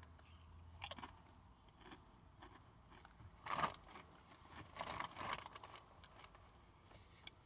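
A ripple-cut potato chip crunching as it is bitten about a second in, then two short bouts of faint chewing crunches.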